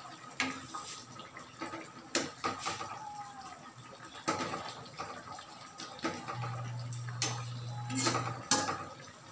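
Metal ladle stirring a simmering coconut-milk fish broth in a metal pan: clinks and scrapes against the pan every second or two, with the broth sloshing. A low hum comes in for about two seconds in the second half.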